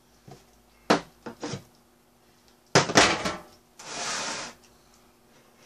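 Dishes and containers knocking and clinking as they are set down and moved on a wooden table, several short knocks then a louder cluster about three seconds in, followed by a brief rustle.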